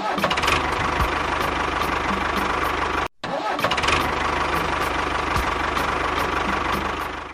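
Small engine starting and running. It cuts off abruptly for an instant about three seconds in, then starts and runs again the same way.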